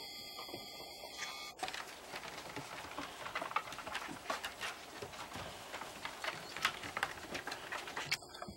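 Basset hound puppies' paws and claws pattering and clicking irregularly on wooden decking as they play and trot about.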